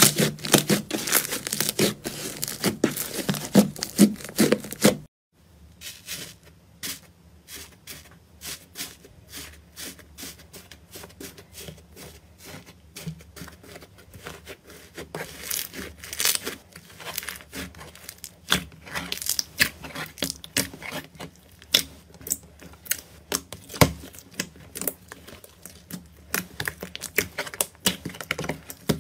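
Hands squeezing and pulling apart fluffy white slime, giving a dense run of crackling, popping and sticky tearing sounds. About five seconds in it cuts off sharply, and after that come sparser, quieter sticky clicks and crackles as thicker slime in a plastic tray is pressed and stretched.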